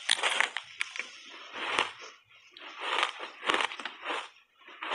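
Refrozen block ice coated in matcha powder being bitten and chewed in big bites. The ice gives an irregular series of crunches and several sharp cracks as it breaks between the teeth.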